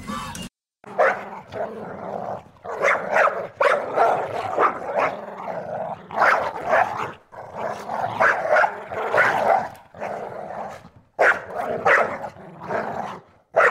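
A group of young dogs barking and yipping over one another, short barks coming in quick runs with brief pauses between.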